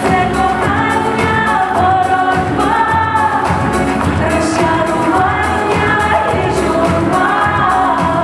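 Pop song with a sung vocal melody over a steady bass beat.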